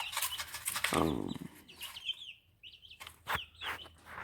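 Young chickens cheeping in short, high chirps that fall in pitch, with a louder, lower call about a second in and a few sharp clicks.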